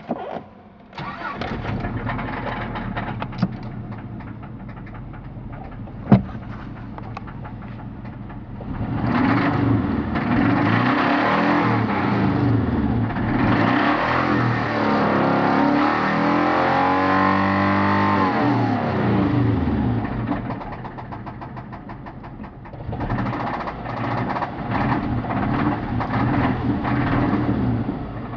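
1991 Subaru Legacy turbo's flat-four engine starting about a second in, idling, then revved up and down twice with an idle between. It has a knock that the owner puts down to bad bearings and expects to need a rebuild.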